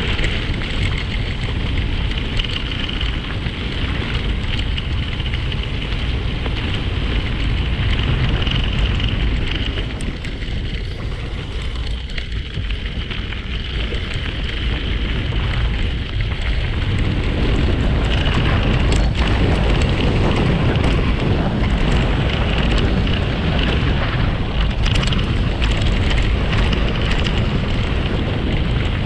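Wind buffeting the microphone together with tyres rolling over a gravel trail at speed, a steady noisy rush that eases a little midway and picks up again.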